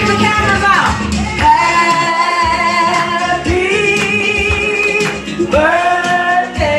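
A woman singing into a microphone through a PA speaker over backing music, holding long notes that glide from one pitch to the next.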